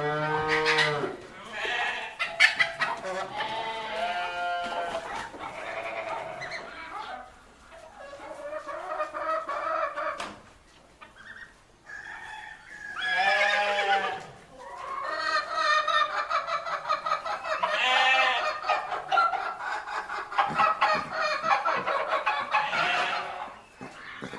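Barnyard ambience of farm animals calling over one another: chickens clucking, a rooster crowing and goats bleating. The calls come in a dense string, with a brief lull about halfway through.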